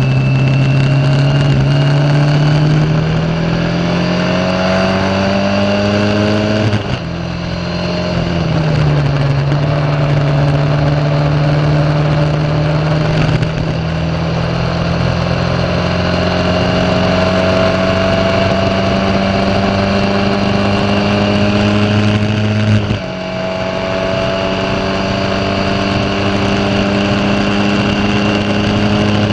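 Formula Ford 1600 racing car's Ford Kent four-cylinder engine pulling hard at full throttle, heard close from the car, with wind rushing past. Its note climbs steadily, breaks off briefly and drops in pitch about seven seconds in and again about six seconds before the end, as at upshifts, then climbs again.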